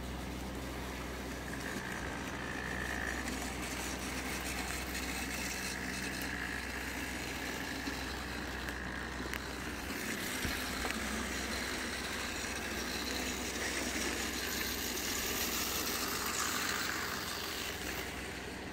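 Model Class 66 diesel locomotive running round the layout hauling a train: a steady mechanical whirring of the small motor and wheels on the rails, swelling a little as the train passes close and easing off near the end.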